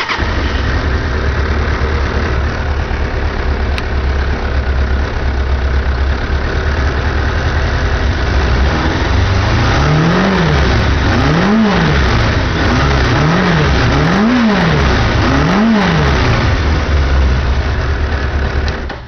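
1999 Suzuki GSX600 Katana's inline-four engine idling just after firing up. Between about nine and sixteen seconds in it is revved in five quick throttle blips that rise and fall in pitch, then settles back to idle. The engine sound cuts off suddenly near the end.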